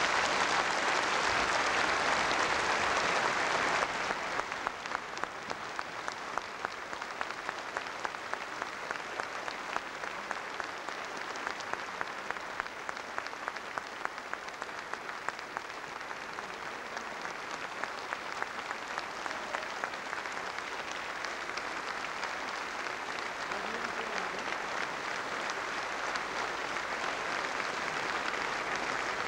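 Large audience applauding at the end of a song. The applause is loudest for about the first four seconds, then eases into lighter clapping in which single claps stand out.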